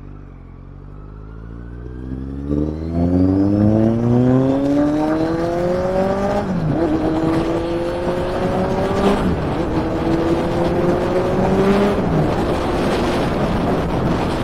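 Kawasaki Z900's inline-four engine and exhaust under hard acceleration. The pitch climbs through the revs and drops sharply at three upshifts, about six, nine and twelve seconds in. Wind noise rises with the speed.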